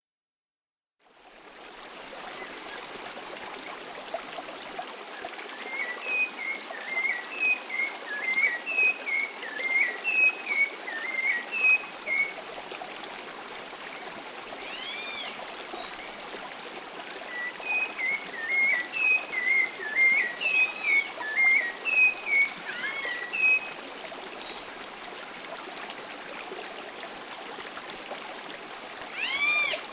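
Field recording of Atlantic Forest birds over the steady rush of running water, fading in about a second in. One bird sings two long runs of quick chirping notes, several seconds each, while other birds give scattered higher, arching calls.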